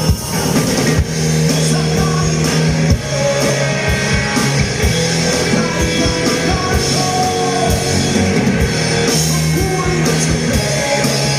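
Live rock band playing: electric guitar over steady low bass notes and a regular drum beat, with singing.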